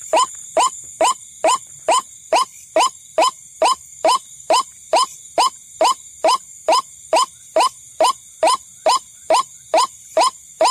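White-breasted waterhen (ruak-ruak) call as used for a bird-trapping lure: a short rising note repeated evenly, a little over twice a second. Under it is a steady high-pitched whine.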